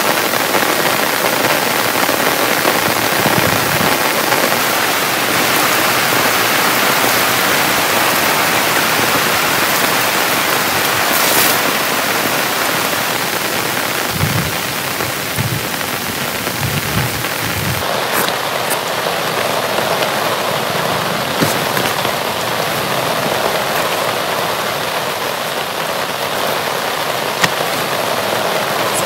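Very heavy rain falling steadily, a dense hiss with scattered sharp drop hits. There are a few short low thuds about halfway through.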